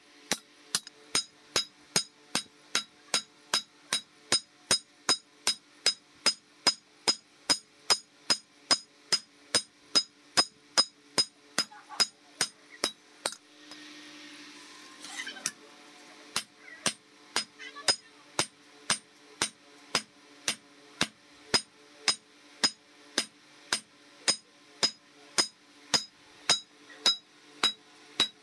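Hammer forging a hot steel knife blade on an anvil, blows falling evenly at about two a second with a bright ringing. About halfway through the blows stop for a couple of seconds while a short rushing noise is heard, then the hammering starts again.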